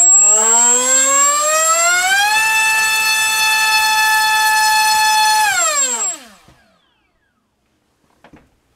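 MultiStar V-Spec 2205 2350 kV brushless racing-drone motor spinning a Dalprop 5x4.5 propeller on a 4-cell battery: a whine that rises in pitch as it throttles up over about two seconds, holds steady for about three seconds, then falls and stops about six and a half seconds in. A thin high steady tone sits above it while it runs.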